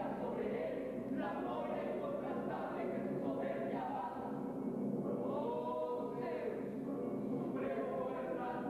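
A choir of several voices singing together, a chant-like melody with notes that slide up and down.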